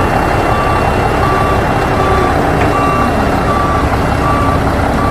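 Truck reversing alarm beeping steadily, one short beep about every three-quarters of a second, over a loud, steady truck engine noise.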